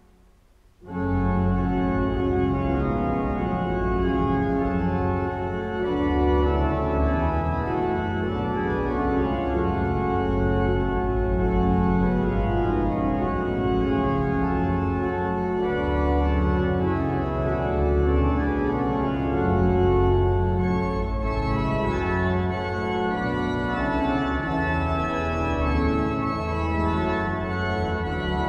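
Organ music: full, sustained chords that shift every second or two, starting abruptly about a second in after a brief near-silence.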